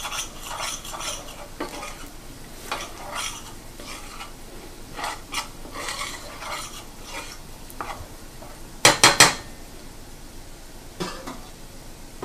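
Metal slotted spatula scraping and stirring onions and flour in a stainless steel skillet over a light sizzle, cooking the flour into a roux for gravy. About nine seconds in come three sharp metal clanks in quick succession.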